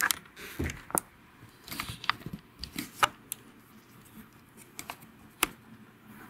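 Handling noise from a handheld camera being picked up and moved: a handful of irregular sharp clicks and light knocks, the loudest right at the start and about a second and three seconds in.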